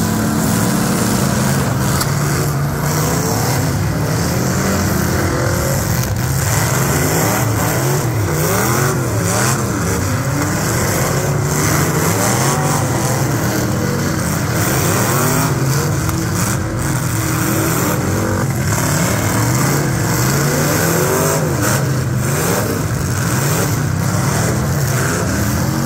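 Several demolition-derby car engines revving hard at once, their pitch climbing and falling again and again as the cars spin their wheels and drive about. A few sharp bangs stand out among them.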